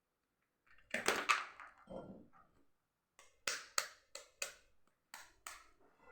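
Kitchenware being handled: a short clatter about a second in, then about six sharp taps and knocks over the next few seconds.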